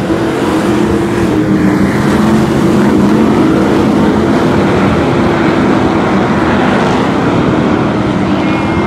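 Hobby stock race cars running together at racing speed, their overlapping engine notes making a loud, steady drone that shifts a little in pitch as the pack circulates.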